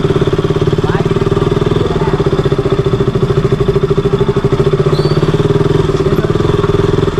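A single-cylinder KTM motorcycle engine running at a steady speed, with a fast, even pulsing.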